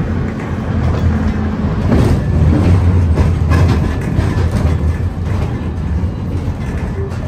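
Historic electric tram running along its track, heard from on board: a steady low rumble with a few short knocks of the wheels over the rails.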